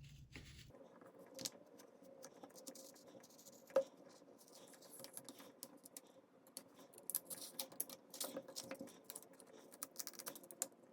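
Thin stainless steel pry tool scraping and clicking along the edge of a Samsung Galaxy Note 5's glass back as it is worked in under the glue: many small faint clicks and scratches, one sharper click about four seconds in, and busier clicking in the second half, over a faint steady hum.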